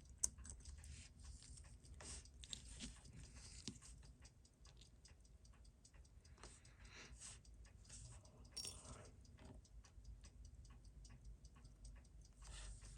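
Faint, quick, unevenly spaced small clicks and taps at a watchmaker's bench while a Seiko 6139 chronograph is being taken apart, with one sharper click just after the start.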